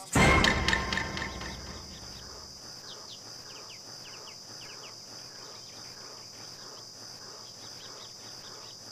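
A loud crash at the start that dies away over about two seconds, then forest ambience: steady cricket and insect chirring with many short bird chirps.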